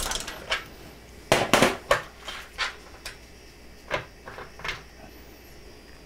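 Small metal parts and hand tools clinking and knocking during work on a dryer drum roller: a run of light, irregular clicks, the loudest cluster about a second and a half in, stopping about five seconds in.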